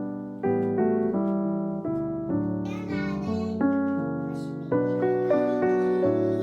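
Background music led by soft piano, with a new note or chord struck about twice a second, each one fading.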